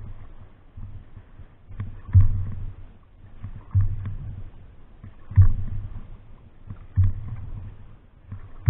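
Water slapping against the hull of an open canoe moving across choppy water. A low thump comes about every second and a half, over a steady wash.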